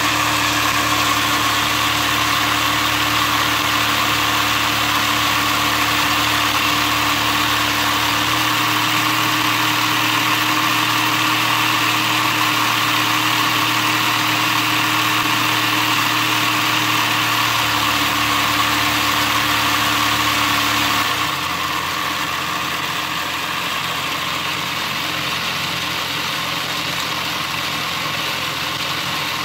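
LEGO model of a Toyota 4A-GE engine running under its electric LEGO motor: a steady whirr with the clatter of the plastic crank, pistons and belt-driven cams. It gets quieter about 21 seconds in.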